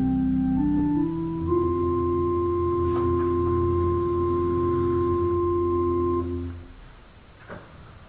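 Church organ closing a piece: a few notes step upward, then a final chord is held for about five seconds and released, leaving quiet room tone with one faint tap shortly after.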